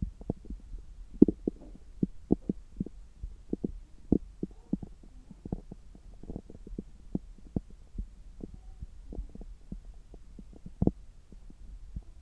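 Bowel sounds heard through a stethoscope pressed to the belly: irregular quick pops and clicks, several a second, with a few faint gurgles, over a steady low hum. The gut is active with digestion about three hours after a meal.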